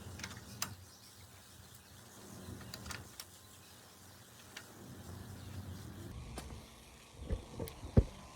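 Bicycle tire being worked by hand onto its wheel rim: scattered light clicks and taps, then a few sharp thumps from about seven seconds in, the loudest near the end.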